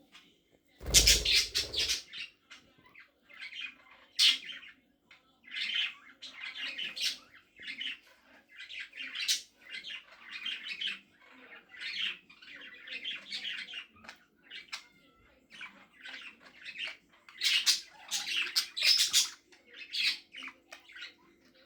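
Pet budgerigars chirping and squawking in quick repeated runs of short high calls, with a loud flurry about a second in.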